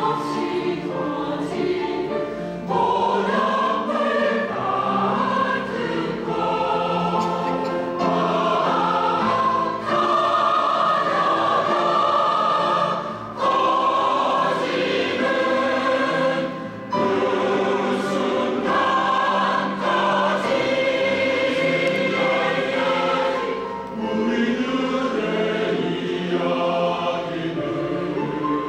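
Women's choir singing sustained chords in phrases of a few seconds, with short breaks between phrases.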